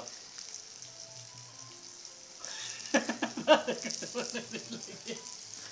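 Onions and tomatoes sizzling in a kadhai over a wood fire, a steady high frying hiss. From about three seconds in, a voice talks over it.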